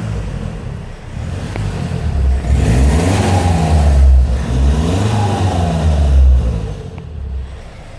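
Kia cee'd 1.6 turbo-diesel engine revved twice from idle and dropping back to idle. It has an exhaust gasket leak just after the diesel particulate filter, which changes the exhaust note only slightly.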